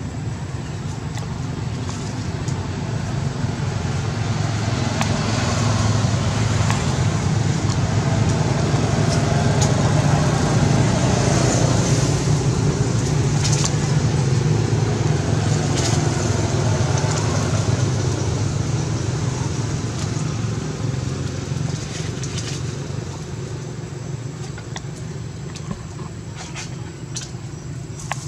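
Low, steady engine rumble that builds for about ten seconds and then slowly fades away, with a few faint clicks scattered through.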